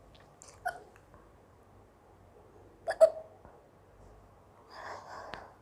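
A woman hiccupping: two short sudden hiccups about two seconds apart, the second louder, brought on by eating spicy black pepper. A soft breathy sound follows near the end.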